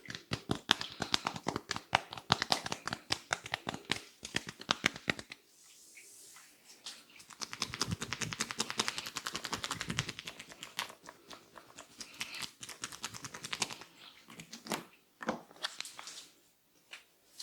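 Hands working over a head and hair in an Indian head massage. It opens with a rapid run of taps, many a second, for about five seconds. After a short pause there is rubbing mixed with taps, then scattered single taps.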